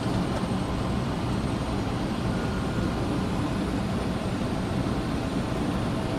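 Steady rush of airflow and engine noise inside an airliner's flight deck on final approach, even and unbroken, heaviest in the low range.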